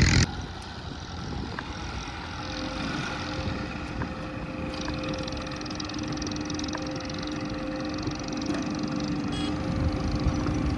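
Diesel earthmoving machine engine running steadily, a constant hum with a steady pitch. A louder sound cuts off suddenly just after the start.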